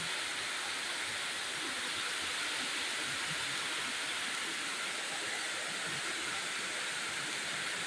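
Steady background hiss with no clear event in it, only a few faint soft knocks.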